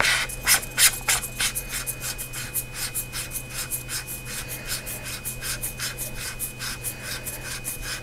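Imalent DX80 flashlight head being screwed back onto its battery body by hand: the screw threads rasp with each twist, about four short strokes a second.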